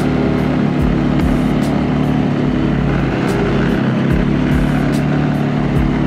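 CFMOTO CForce 600 EPS ATV's single-cylinder engine running at a steady speed while the quad drives along a dirt forest track: a constant low drone.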